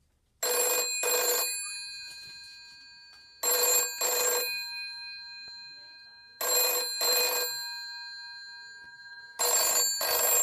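GPO 746 rotary telephone's electromechanical bell ringing for an incoming call in the British double-ring cadence: four pairs of short rings about three seconds apart. After each pair the gongs keep humming and fade slowly.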